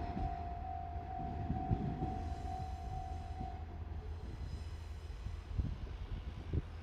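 Japanese level-crossing alarm ringing its steady pulsing tone, stopping about halfway through, over the low rumble of a Series 1500 diesel railcar moving away; a couple of soft thumps near the end.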